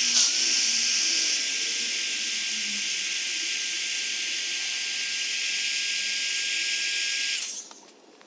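Handheld electric air pump running steadily, blowing air through a nozzle into an Intex inflatable chair's chamber: a loud even hiss with a thin steady whine. It stops about seven and a half seconds in.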